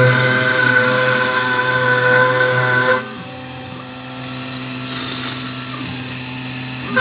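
CNC router spindle running with a small end mill cutting fret slots into a wooden jig: a steady high whine with several held tones. It drops in level about three seconds in, then builds again.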